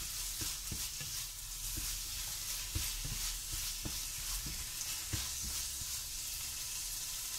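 Spatula stirring sprouted moong through a sizzling masala paste in a frying pan: a steady frying sizzle with frequent soft, irregular scrapes and knocks of the spatula against the pan.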